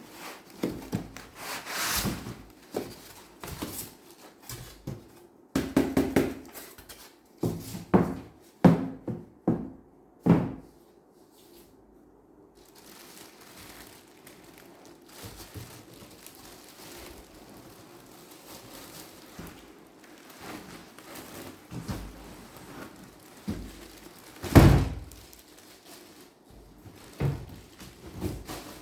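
A PC case and its packaging being handled during unboxing: scattered knocks and thunks with rustling of packing material, ending in one heavier thunk near the end.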